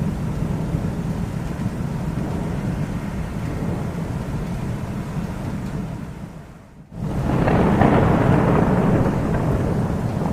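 Thunder rumbling steadily, then dying away about six seconds in; about seven seconds in a louder, sharper thunderclap breaks in suddenly and rolls on, slowly easing off.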